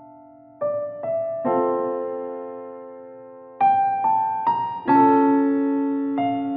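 Slow, gentle piano music: single notes and chords struck every second or so and left to ring out and fade.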